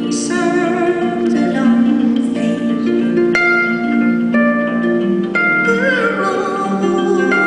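Concert pedal harp played solo: plucked notes and chords that ring on over one another.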